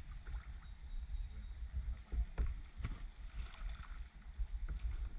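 Kayak paddle strokes in the water: a few splashes and light knocks of the paddle about halfway through and again near the end, over a steady low rumble.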